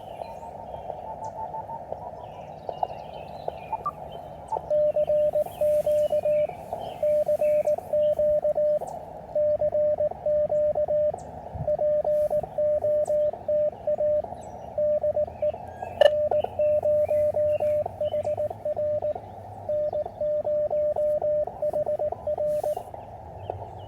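Elecraft KX3 transceiver sending Morse code: a steady sidetone of about 600 Hz keyed in dots and dashes in repeated groups from a paddle. Before and after the keying there is the hiss of the narrow-filtered receiver.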